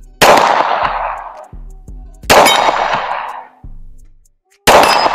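Three pistol shots from a Glock, a little over two seconds apart, each with a long fading echo. The later two carry a metallic ring: bullets striking a steel target.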